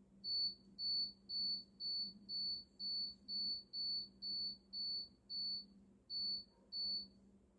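Microwave oven beeping at the end of its cooking cycle: a run of about a dozen short, high electronic beeps, roughly two a second, with a brief pause before the last two.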